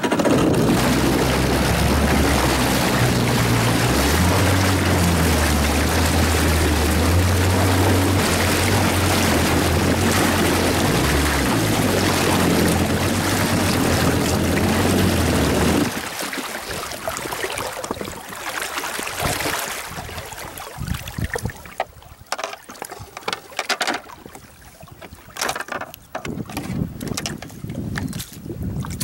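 Jet ski engine running at low speed, its pitch shifting a few times, with wind on the microphone; the engine cuts off suddenly about halfway through. Afterwards there is only wind and scattered small handling noises.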